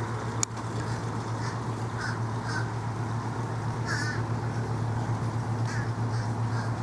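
Short bird calls, crow-like caws, repeated every second or so over a steady low hum and a haze of background noise, with one sharp click about half a second in.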